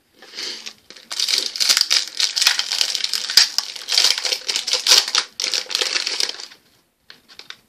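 Foil wrapper of a hockey card pack crinkling as it is torn open and handled, a dense crackle that stops a little over a second before the end, leaving a few faint clicks.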